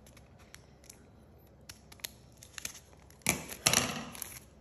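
Scissors snipping folded white paper in a few faint, short cuts, then a louder rustle of the folded paper being handled about three seconds in.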